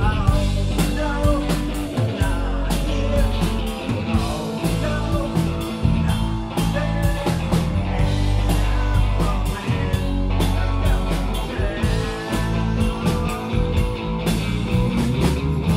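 Live rock band playing: electric guitar lines over bass guitar and a drum kit with steady cymbal and drum hits.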